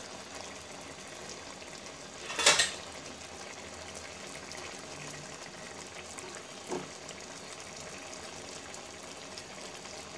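Poa fish curry simmering in a pan, a steady bubbling hiss. A metal spoon clatters against the pan about two and a half seconds in, and knocks once more, softer, near seven seconds.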